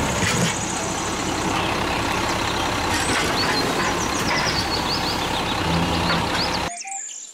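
Automated garbage truck running, with its lifting arm raising a wheelie bin and tipping it into the hopper; engine and hydraulic noise are steady, with a run of short high squeals midway. The sound cuts off suddenly near the end.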